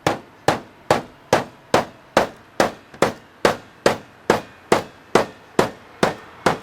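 Steady hammering, about two and a half blows a second, each a sharp strike with a brief ring.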